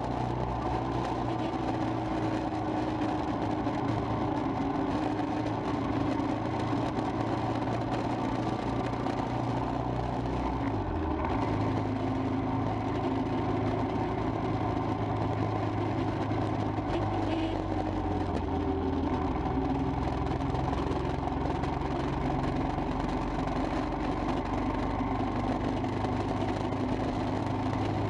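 Royal Enfield Himalayan's single-cylinder engine running steadily while riding in traffic; its note drops and shifts about ten seconds in.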